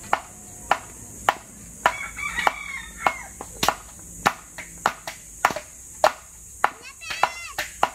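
Bolo (machete) chopping into bamboo with sharp, steady strikes about every half second, cracking the culm to flatten it into wall slats. A rooster crows about two seconds in.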